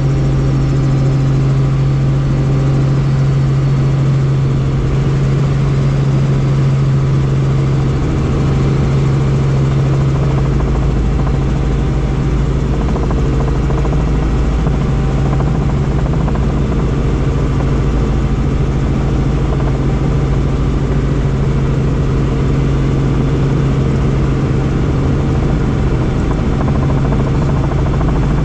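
Helicopter in flight: steady, loud rotor and engine noise with a strong low hum and an even rumble beneath it.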